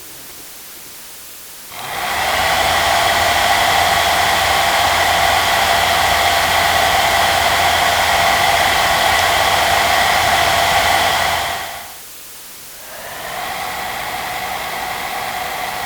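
Fan motor of a household electric appliance, switched on: it spins up to a steady rushing whine with a low hum, runs for about ten seconds, winds down, then starts again, quieter, on a lower setting.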